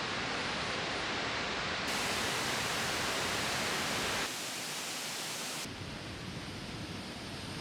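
Waterfall rushing: a steady hiss of falling water that changes abruptly in brightness and loudness about two seconds in and again near four and a half and six seconds, as between different takes.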